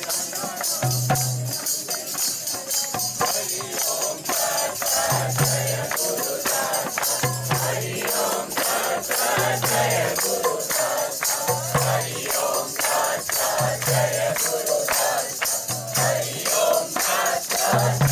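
Devotional music: singing with jingling hand percussion playing quick strokes, and a low note pulsing about every two seconds.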